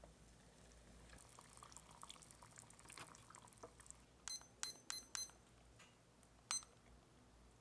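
A faint pour lasting about three seconds, with a fine crackle in it. It is followed by five light, ringing taps of a utensil against cookware.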